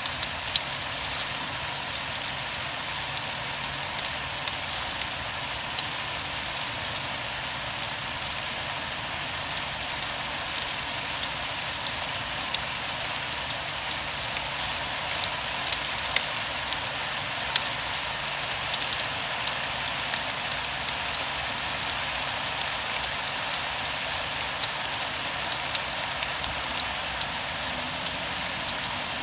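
Steady rain falling, with many sharp, irregular taps of individual drops striking a nearby surface.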